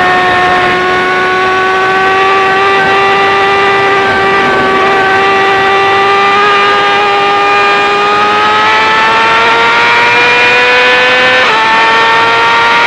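Yamaha R6 inline-four running at high revs through an Akrapovic full exhaust system. It holds a steady high note, climbs slowly through the second half, and breaks briefly near the end at a gear change.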